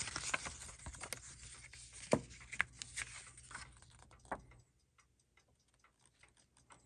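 A paper instruction booklet handled close up: rustling and crisp crinkles as it is unfolded and turned. After about four and a half seconds the handling settles, leaving only faint light ticks.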